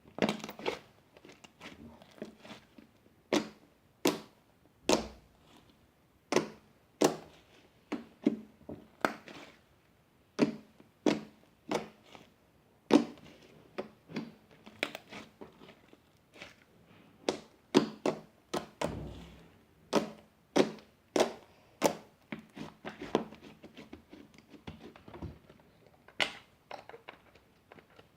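Blue slime mixed with EVA foam clay being squeezed and poked by hand, giving a string of irregular sharp clicks and pops.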